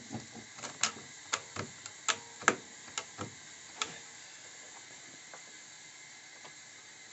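A run of sharp clicks and light knocks, about a dozen in the first four seconds, then a few fainter ones, as a clamp is tightened to hold a wooden board in place on the bench.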